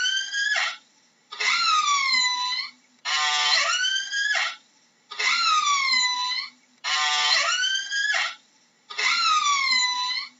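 Orca calls repeating about every two seconds. Each starts with a buzzy stretch and ends in a pitched sweep that dips down and then rises sharply, with a brief silence before the next call.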